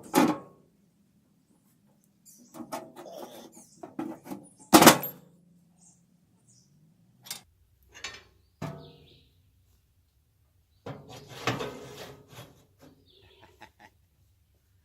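Scattered metal knocks, clicks and clanks from handling and fitting parts of a tractor PTO chipper's cover and driveshaft. The loudest knock comes about five seconds in and rings briefly, and a cluster of rattling knocks follows near the end.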